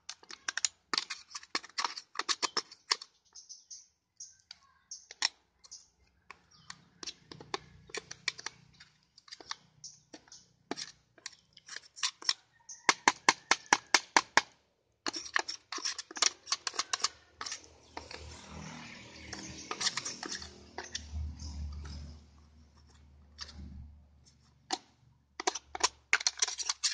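Quick scraping and tapping strokes of a tool cleaning packed sawdust out of a chainsaw's guide bar and chain area, in clusters of about four strokes a second. There is a stretch of steadier rubbing about two-thirds of the way in.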